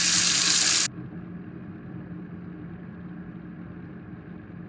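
Water running from a kitchen sink tap, a steady rush. About a second in, the sound turns suddenly muffled and quieter, with the high end cut away. This is EQ that mimics severe hearing loss heard without a hearing aid.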